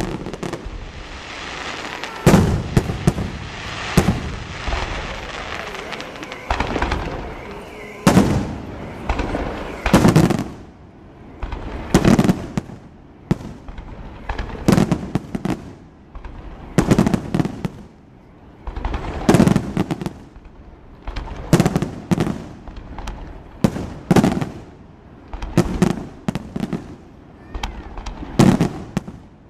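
Fireworks display: aerial shells bursting in steady succession, a loud bang about every two seconds, each one echoing as it dies away.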